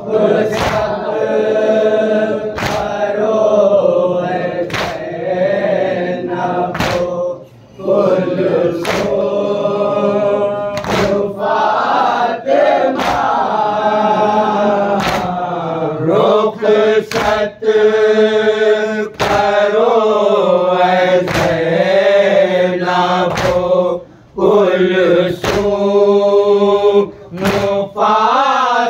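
A group of men chanting a noha in unison, kept in time by chest-beating (matam) about once a second. The singing breaks off briefly twice between lines while the beat carries on.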